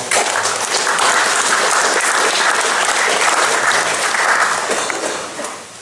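Audience applauding, starting all at once and dying away about five seconds in.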